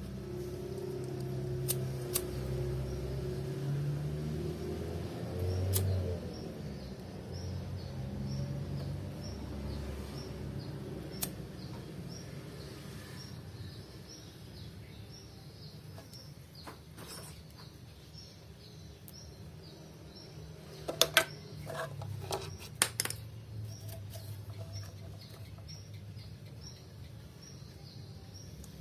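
Outdoor ambience with a steady run of short, high chirps about twice a second, and a quick cluster of sharp knocks a little past the middle. A low, uneven hum fills the first ten seconds or so.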